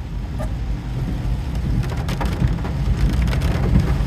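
Heavy rain falling on a car's roof and windshield, heard from inside the car as a steady patter over a low rumble.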